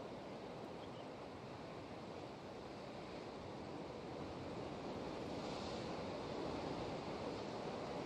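Distant ocean surf breaking over rocks, a steady rush that swells about halfway through as a bigger wave comes in.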